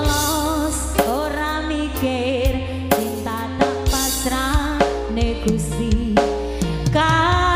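Live Javanese campursari band music: a drum kit with snare, bass drum and cymbal hits keeps a steady beat over a sustained bass line, with a wavering lead melody on top.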